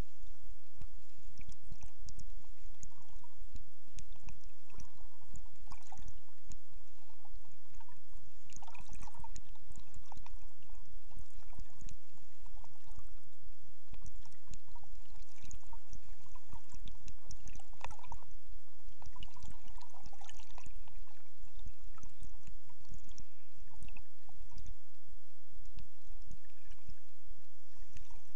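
Water heard underwater through a camera's waterproof housing: a steady low rumble of moving water with gurgling and many small scattered crackles and clicks.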